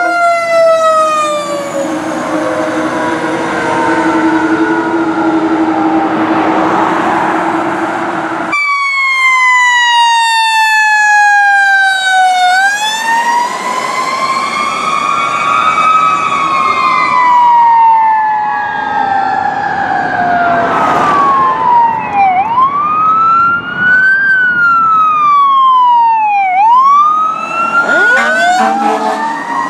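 Fire truck sirens on emergency response, one apparatus after another. First a long wail falling slowly in pitch. About eight seconds in it changes abruptly to another siren sweeping slowly up and down. From past the middle come quicker up-and-down sweeps, with two sirens overlapping toward the end.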